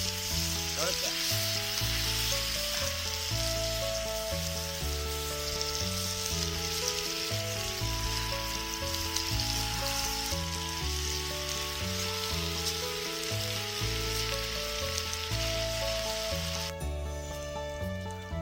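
Food sizzling as it fries in a pan, a steady hiss that cuts off suddenly near the end, over background music with a stepping bass line.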